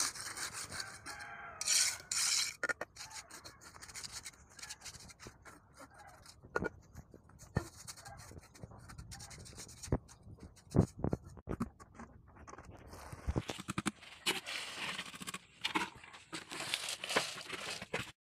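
Steel tie wire being worked by hand with a small tool against a concrete beam and rebar: rasping scrapes and scattered sharp metallic clicks, with denser scraping in the last few seconds. The sound cuts off abruptly just before the end.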